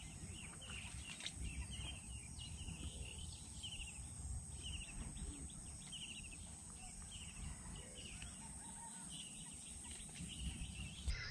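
A bird calling in short chirps repeated every half second to a second, faint, over a low steady rumble.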